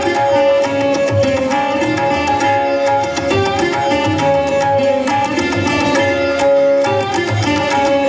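Kathak dance music: tabla playing a steady rhythm under a melodic line, over a held drone.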